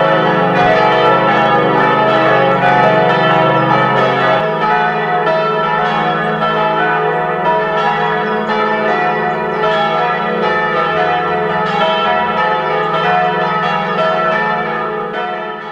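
Peal of bronze church bells from a five-bell set cast in 1962 by Petit & Gebr. Edelbrock and tuned C♯–E–F♯–G♯–A, swinging and striking together in a dense, overlapping ringing. About four seconds in the deepest hum drops out while the other bells ring on, and the sound fades near the end.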